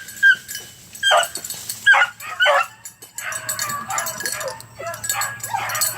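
Male puppy barking and yipping in sharp, high-pitched calls at a rabbit it has found hiding, several separate barks in the first three seconds, then a quicker run of smaller yips.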